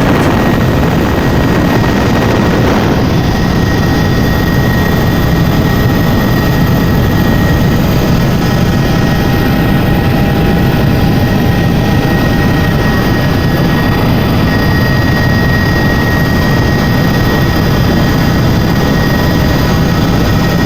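Helicopter turbine engine and rotors running steadily in flight, a loud constant drone with a thin steady high-pitched whine over it.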